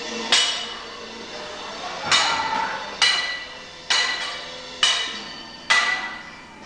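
Stage-combat weapons, among them a long-handled axe, clashing in a mock fight. There are six sharp ringing strikes, most of them about a second apart, each dying away before the next.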